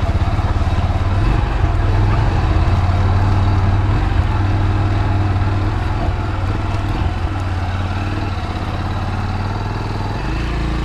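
Motorcycle engine running with a low, steady note as the bike is ridden slowly over a rough dirt track and onto a log bridge.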